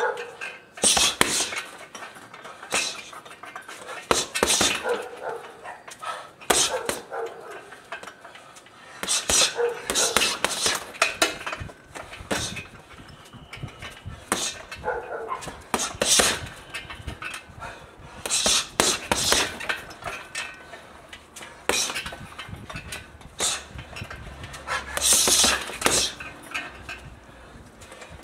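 Boxing gloves punching a hanging heavy bag in short combinations a few seconds apart, each flurry a run of sharp slaps and thuds with the bag's hanging chain rattling. The boxer breathes out hard on the punches.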